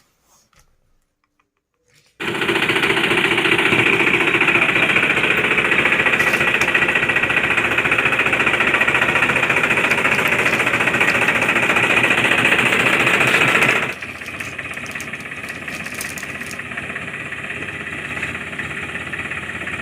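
A small motor-driven machine running with a fast, rattling chatter. It starts abruptly about two seconds in, runs loud for about twelve seconds, then suddenly drops to a quieter level and keeps going.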